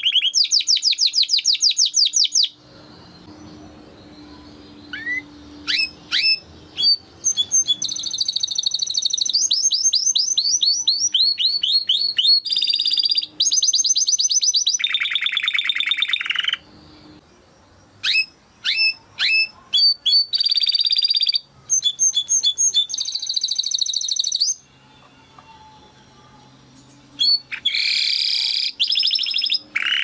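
Domestic canary singing: fast trilled phrases of rapidly repeated notes, each phrase one to two seconds long and pitched differently from the last. Between them come single rising chirps and a few short pauses.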